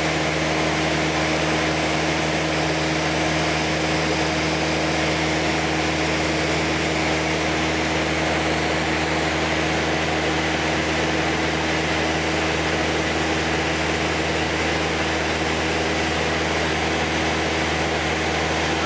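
Light airplane's engine and propeller droning in cruise, heard from inside the cabin: a steady, even drone of constant pitch over a rushing hiss of airflow.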